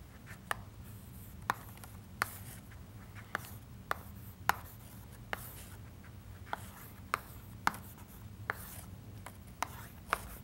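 Chalk writing on a chalkboard: a dozen or so sharp taps at uneven intervals as the chalk strikes the board, with faint scratching between them.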